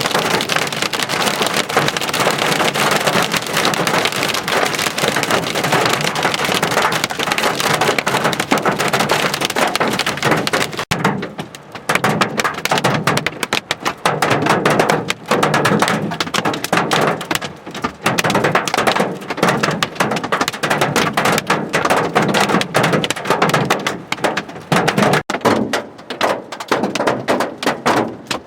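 Heavy rain and hail pelting down, a loud, dense clatter of impacts from a severe thunderstorm. The downpour eases briefly about eleven seconds in, and after that single hailstone strikes stand out more.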